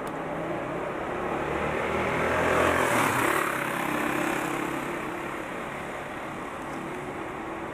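Street traffic noise with a steady engine hum. A passing vehicle's noise swells to a peak about three seconds in and then fades away.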